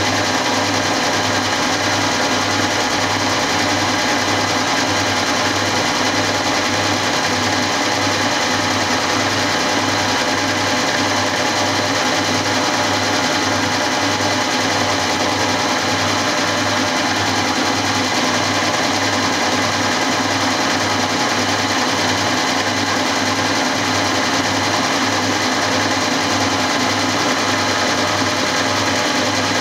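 Milling machine running steadily while flycutting the top face of a model lathe's saddle, its motor and gearing humming with an even, repeating pulse as the single-point flycutter takes an interrupted cut each revolution.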